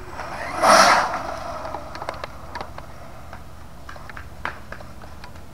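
Brushless-powered 4x4 RC truck launching away on full throttle across concrete: a short loud burst of motor and tyre noise about a second in, fading as it drives off.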